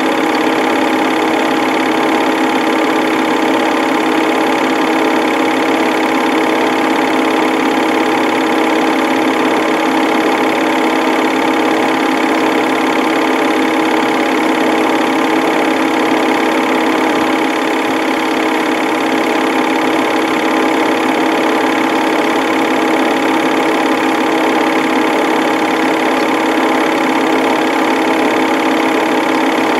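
Home-movie film projector running: a steady mechanical whir with a few fixed hum tones.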